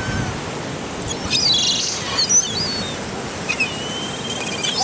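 Birds chirping in short, high calls, in two spells, over a steady rush of surf and wind noise.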